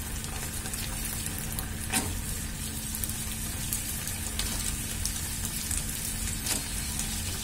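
Onions, capsicum and sauce sizzling steadily in a frying pan as fried potato fingers are dropped in, with two light clicks.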